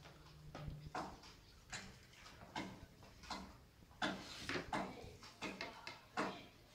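Soft, scattered taps and short scrapes of a plastic ruler being set down and moved and of a hand marking lines on cloth over a wooden tabletop.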